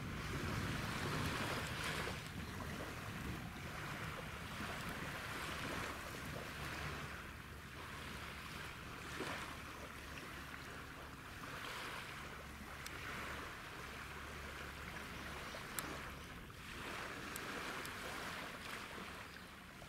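Small waves washing on a beach in gentle surges every couple of seconds, with a light wind over a steady low hum.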